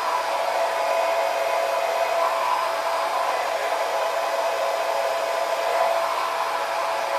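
Handheld hair dryer with a diffuser attachment running steadily on a medium setting, a constant rush of air with a steady motor whine.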